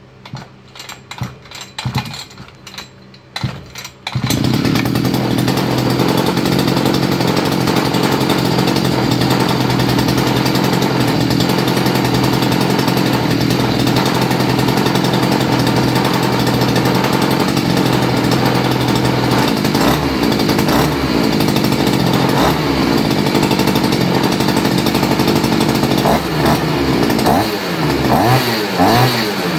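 A 43 cc two-stroke petrol engine, just overhauled with carbon cleaned out and carburettor and exhaust cleaned, starting with a few irregular bursts and catching about four seconds in. It then runs steadily at high speed, and in the last third it is revved up and down several times, quick revs near the end, running cleanly as a test after the rebuild.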